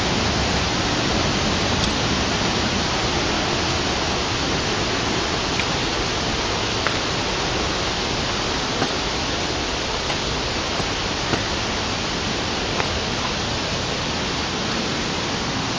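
Rain-swollen water pouring over a wall, a steady rushing noise of high water.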